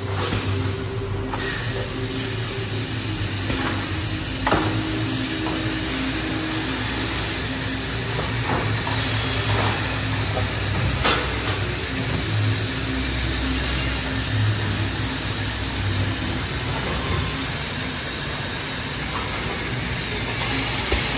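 Hundegger WoodRanger wall saw running: a steady hum and whir of its motors over a constant hiss, with a few sharp knocks, the loudest about four and a half seconds in and another about eleven seconds in.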